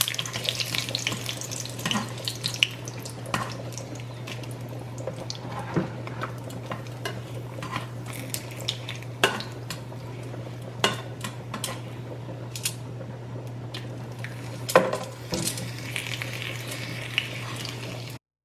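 Dried guajillo chiles frying in hot oil in a nonstick skillet, a steady sizzle. Metal tongs click and scrape against the pan a dozen or so times as the chiles are turned and lifted out. A steady low hum runs underneath.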